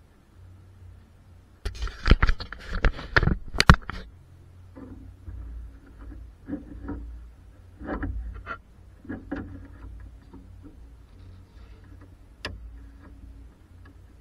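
Handling noises: a quick run of clattering knocks and scrapes, then scattered softer knocks and a single sharp click near the end.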